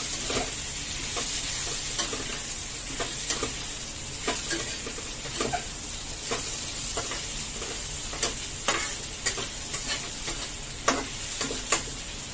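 Onions and spices sizzling in a steel kadai while a metal spatula stirs them, scraping and knocking against the pan in irregular clicks over a steady frying hiss.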